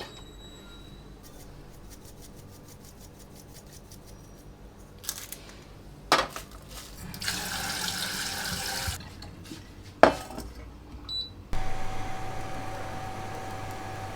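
Kitchen sounds: dishes and glass clinking a few times, and a tap running for about two seconds. Near the end a small appliance switches on and runs with a steady hum.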